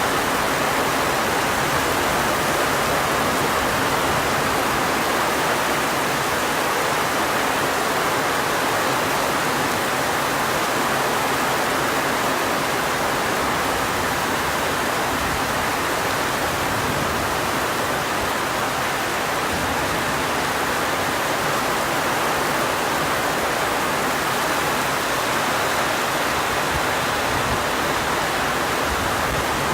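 Heavy rain falling in a steady downpour, an even rushing hiss with no pauses.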